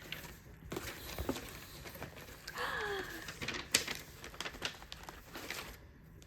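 Rustling and handling noise with scattered light clicks and taps, as items and packaging are moved about, with a short falling squeak about three seconds in and one sharp click just before four seconds.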